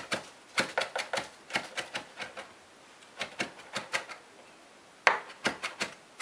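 Chef's knife chopping basil on a heavy polyethylene cutting board: runs of sharp knocks of the blade on the board, a few a second, with short pauses between runs.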